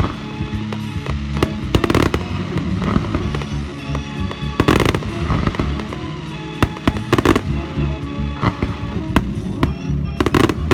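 Fireworks bursting in a display: sharp bangs every second or two with smaller crackles between, the heaviest about halfway through and near the end, over music with steady low notes.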